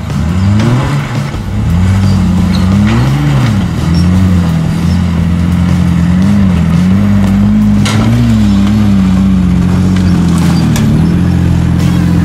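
Engine of a lifted rock-crawling Jeep Wrangler revving up and down in short bursts as it climbs over rocks and logs, then running more steadily under light throttle with small rises and falls in pitch.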